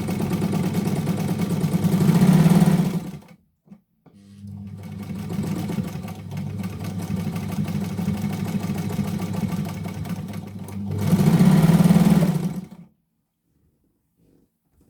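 Novum Deluxe heavy-duty straight-stitch sewing machine running, stitching in two runs: it speeds up and stops about three seconds in, starts again a second later, speeds up once more and stops near the end.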